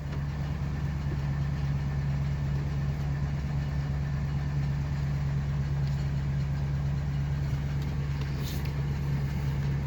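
2004 Ford E350 van's engine idling steadily, running for under half a minute after a hard start.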